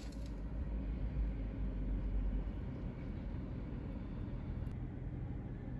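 Steady low rumble with a faint hiss, vehicle-type background noise, with a faint click about four and a half seconds in.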